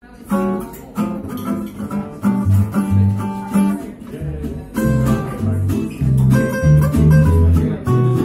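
Upright bass plucked pizzicato, playing a run of low notes, with higher plucked-string notes sounding above it.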